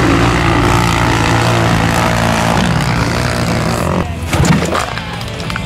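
Engines of side-by-side UTVs racing on a dirt course, revving up and down. About four seconds in the sound changes and a few sharp thumps follow, the loudest shortly after.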